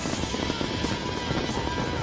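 Fireworks display with dense, continuous bangs and crackles, mixed with a music soundtrack.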